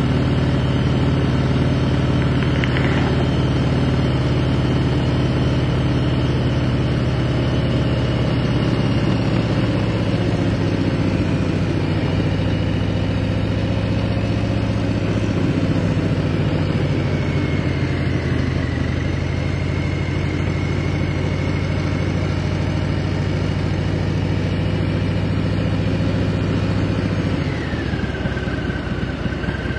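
Cruiser motorcycle engine running steadily at road speed, heard from the rider's seat. The engine note drops near the end.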